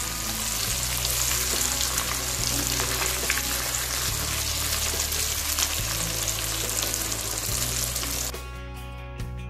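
Spice-coated paneer cubes shallow-frying in hot oil, a steady dense sizzle as they are turned with a slotted spoon; the sizzle stops about eight seconds in.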